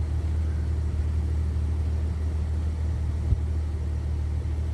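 Jeep Cherokee XJ's 4.0 L straight-six running steadily, a constant low hum, with one sharp click about three seconds in. The engine is running rich and has stored misfire codes for cylinders 1, 5 and 6.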